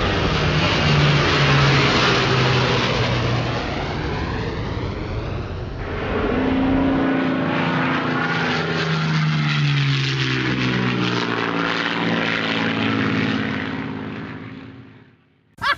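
An aircraft flying past: a steady engine drone whose pitch shifts and drops midway, fading out near the end.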